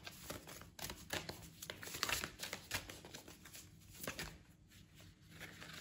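Oracle card deck being shuffled by hand: a quick run of faint papery flicks and rustles, thinning out over the last couple of seconds.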